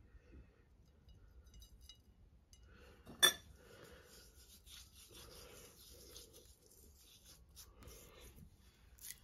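Hands rubbing dried herb seasoning into a raw topside beef joint on a china plate: soft, repeated rubbing strokes, with one sharp click about three seconds in.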